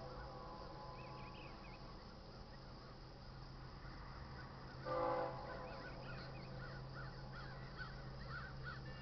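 Diesel locomotive horn of an approaching freight train, heard from a distance: one short blast about halfway through, sounding for the grade crossing. Birds chirp around it over a low steady hum.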